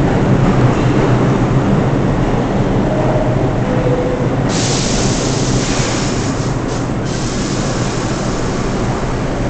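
An R62A subway train running, heard from inside the car: a steady rumble of wheels on rail with a low hum underneath. About halfway through a loud hiss comes in suddenly and holds.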